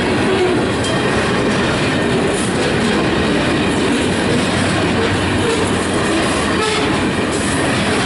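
Loaded covered grain hopper cars rolling past at close range: a steady rumble of steel wheels on the rails, with a few clacks as wheels cross rail joints.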